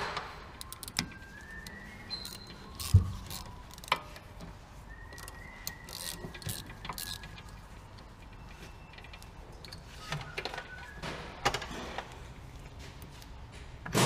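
A hand tool turns the spindle of a Nissan Qashqai J11 rear brake caliper, where the electric parking-brake motor has been removed, to wind the piston back. Scattered metal clicks and clinks, one thump about three seconds in, and a few faint squeaks.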